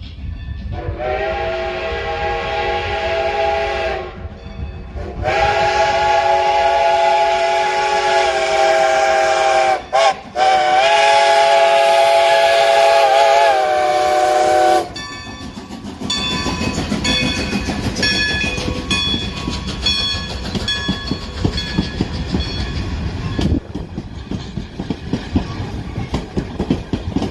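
Strasburg Rail Road No. 90, a steam locomotive, blowing its chime whistle for the grade crossing: two long blasts, a brief short one and a final long one. After that, about fifteen seconds in, the locomotive and passenger cars roll past with wheels clacking over the rails, under the steady ringing of the crossing bell.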